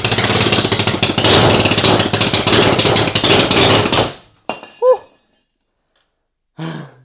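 Homemade 3D-printed 180cc single-cylinder four-stroke engine running loud and fast, then cutting out abruptly about four seconds in as its crankshaft snaps and the flywheel comes off. A brief clatter follows.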